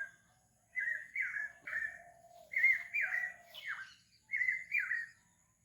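A bird calling: short, down-slurred notes repeated in quick groups of two or three, with brief pauses between the groups.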